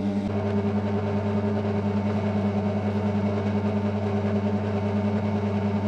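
Electric dough-kneading mixer running with a batch of dough in its steel bowl: a steady motor hum with a slight rapid pulse.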